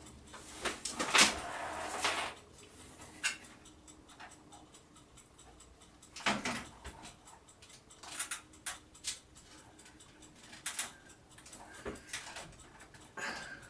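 Hands working on a computer case, prying and pulling at a part that is stuck: scattered clicks and knocks with short scraping rustles, the loudest about a second in and again around six seconds.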